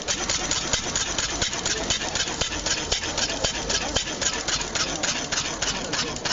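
An engine running steadily with an even, rapid chugging of about six beats a second.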